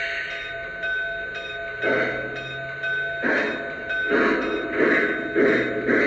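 Lionel Legacy Y6-b model steam locomotive's sound system playing steam exhaust chuffs that start slowly about two seconds in and quicken to about two a second, as when the engine pulls away, over a steady high tone.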